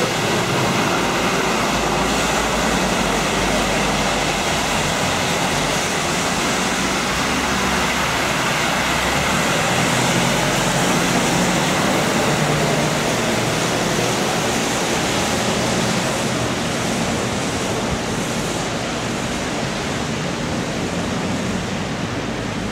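London double-decker buses passing close on a wet road: a steady hiss of tyres on the rain-soaked street over a low engine rumble, easing slightly near the end.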